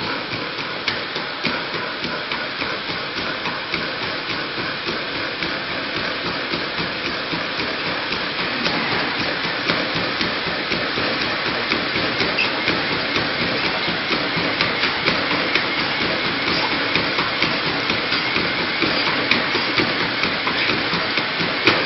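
Rapid running footfalls at a sprint, about three a second, over a steady hiss, slowly getting louder.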